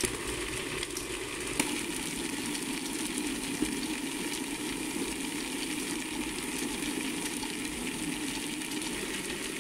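Motor-driven star roller drum turning steadily, with rice puffs tumbling inside as they are coated with black powder burst-charge mixture: a continuous hiss and drone with a few faint clicks.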